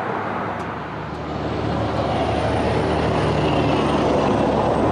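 Engine noise: a steady rumble with a low hum and a faint high whine, slowly getting louder.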